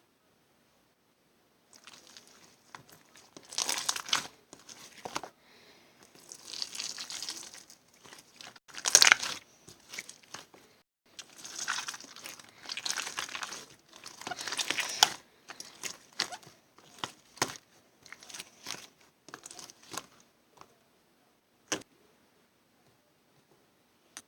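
Close crinkling and rustling of handled material in irregular bursts, loudest about nine seconds in, followed by a single sharp click near the end.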